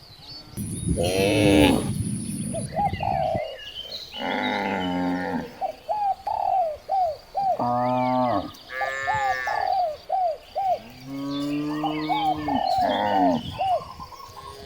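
Several cattle mooing in turn, long drawn-out calls with the loudest near the start. Between the moos a bird gives short calls, repeated several times.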